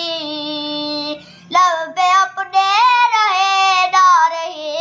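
A young boy singing a qaseeda: he holds one long note, breaks off briefly about a second in, then sings a new line with a wavering, ornamented melody.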